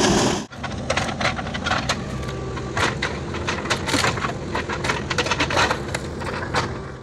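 JCB backhoe loader's diesel engine running steadily while its bucket rips into a bank of soil, roots and brush, with repeated cracking and crushing of wood and earth.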